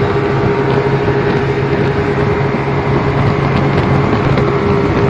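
Speedboat engine running steadily at speed, a constant drone with a steady hum, over the rush of water churning in the wake and wind noise.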